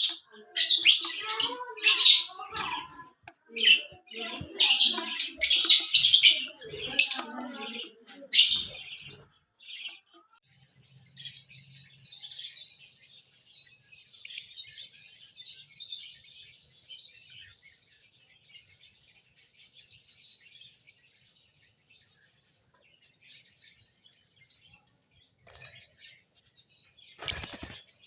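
Lovebirds calling: loud, shrill chirps in quick bursts for the first several seconds, then softer, continuous high twittering that thins out, with one more loud call near the end.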